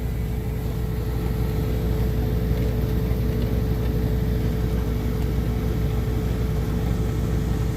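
Steady low machine drone in a semi truck's cab: a constant deep rumble with one thin, steady hum above it, unchanging throughout.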